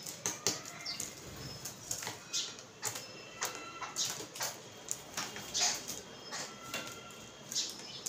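A flock of babblers feeding on a tabletop: irregular sharp taps of beaks pecking crumbs off the table, wing flutters as birds hop and fly on and off, and short high chirps.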